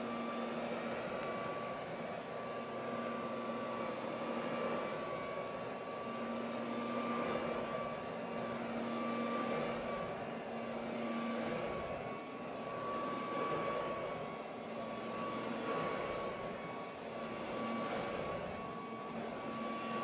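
1930s Norca Dustette 8015 hand vacuum running with a steady motor whine over the rush of its suction. The sound swells and eases every couple of seconds as the nozzle is pushed back and forth over carpet.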